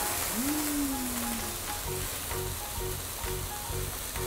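Flambéed pork knuckle sizzling on a hot cast-iron platter while the flames burn over it, with a short sliding tone near the start. Background music with a steady beat comes in about two seconds in.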